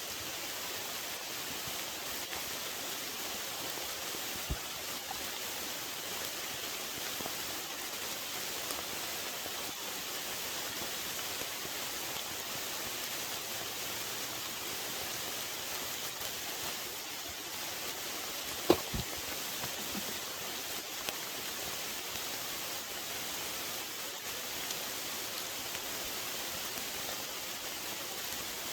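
Steady hiss of rain. One sharp crack about two-thirds of the way through, and a couple of faint clicks.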